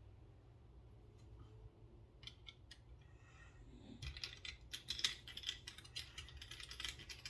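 Light, quick, irregular clicking of a small driver and metal knife parts as a screw is worked out of a Benchmade Bugout pocket knife: a few isolated clicks, then steady rapid clicking from about four seconds in.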